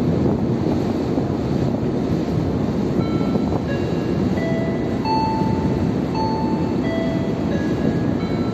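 Steady rumbling rush on the open deck of a moving car ferry: the ship's engines, wind and water along the hull. About three seconds in, a slow melody of single chime-like notes starts over it.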